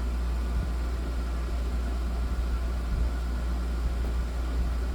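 Steady low hum with an even hiss over it: constant background machine noise in a room, with no distinct events.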